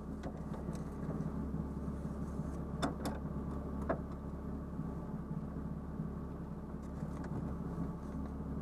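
Car engine idling steadily, heard from inside the cabin of the stationary car, with two short clicks about three and four seconds in.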